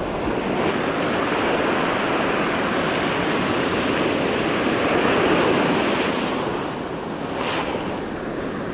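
Ocean surf breaking and washing up the sand in a steady rush, swelling loudest about five seconds in as a wave surges in.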